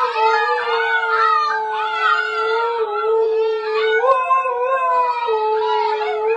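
A dog howling in long, held notes that shift in pitch every second or two without a break.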